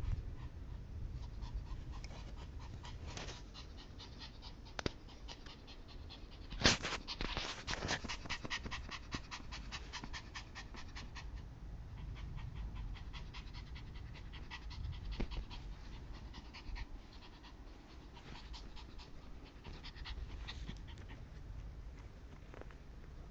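Chihuahua panting fast and rhythmically, anxious panting from fear of a thunderstorm. A single sharp knock sounds about seven seconds in.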